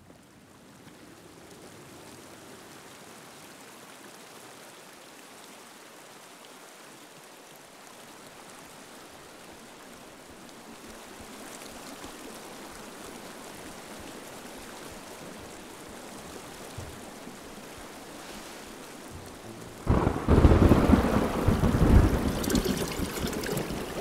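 Steady soft rain hiss, slowly growing louder, then a sudden loud thunderclap with a deep rumble that fades off over the last few seconds.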